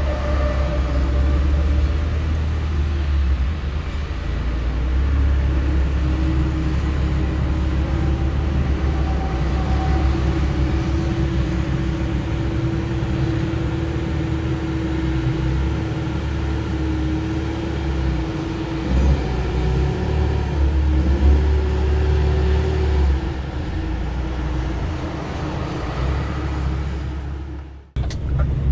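DAF truck's diesel engine idling steadily, heard inside the cab: a low rumble with a hum above it that wavers in pitch about two thirds of the way through. The sound cuts off abruptly near the end.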